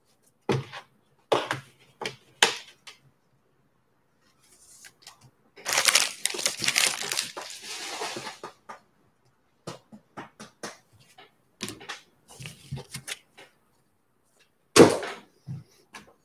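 Foil trading-card pack wrapper crinkling and tearing open for about three seconds in the middle, with scattered clicks and taps of cards and packs being handled before and after.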